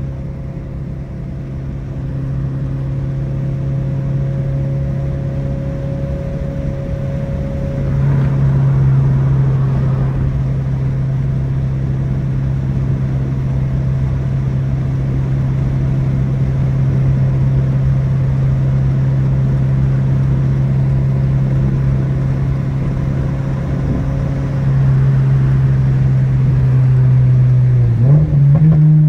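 2022 Toyota GR86's 2.4-litre flat-four through an aftermarket cat-back exhaust, running at a steady engine speed with a constant drone. It gets a little louder about eight seconds in, and the note dips briefly then rises again near the end.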